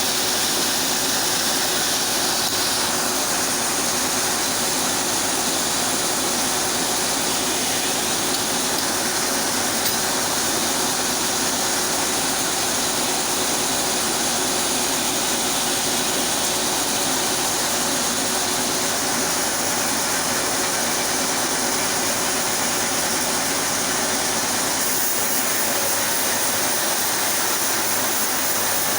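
Chainsaw running steadily under load, ripping lengthwise through a sapodilla log.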